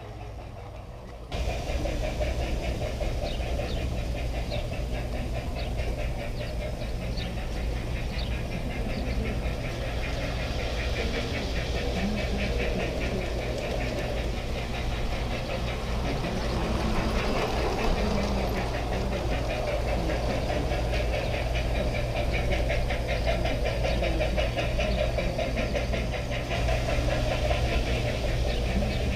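G-scale garden-railway train running, heard from a camera riding aboard it: a steady motor and gear hum with a fast, rattling clatter of wheels on the track. It starts suddenly about a second in and runs on at an even level.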